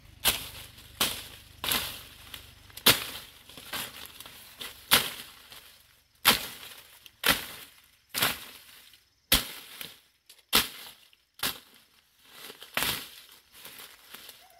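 A machete chopping through woody stalks and undergrowth, a sharp crunching strike about once a second, around a dozen in all.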